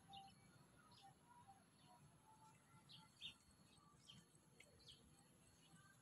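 Faint bird chirps: short, high, scattered calls a few times a second, the clearest about three seconds in, over a quiet low background noise.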